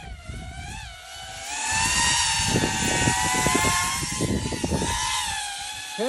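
FPV mini quadcopter's motors whining in flight, the pitch wavering up and down with the throttle. It grows louder about a second and a half in, with gusts of low rumble underneath.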